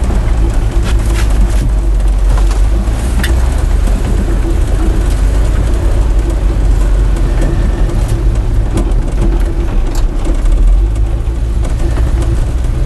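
Dodge Power Wagon's 360 cubic-inch V8 running on wood gas from an onboard gasifier while the truck is driven, heard from inside the cab: a loud, steady low drone mixed with road noise and occasional light clicks and rattles.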